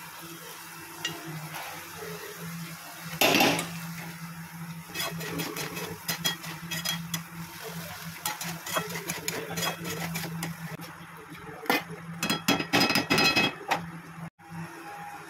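A spatula stirring and scraping chickpeas in masala in a metal kadhai, with repeated clinks and knocks against the pan over a steady low hum. There is a loud clatter about three seconds in and a fast run of louder clattering near the end.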